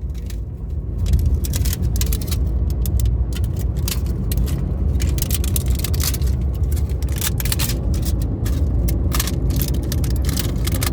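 Plastic box crackling, a dense irregular run of sharp crackles and clicks, over a steady low rumble.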